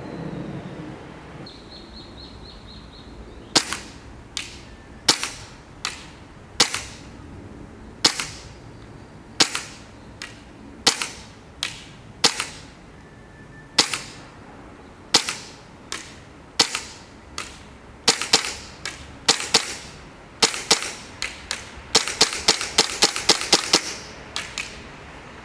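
Tokyo Marui Glock 22 gas blowback airsoft pistol firing: sharp pops, each with the snap of the slide cycling. The shots are single and irregular, about one a second at first, then come faster, with a rapid string of shots near the end.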